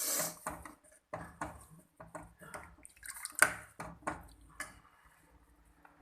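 Spoon stirring milk in a cooking pan, clinking and knocking against the pan at irregular intervals, thinning out near the end.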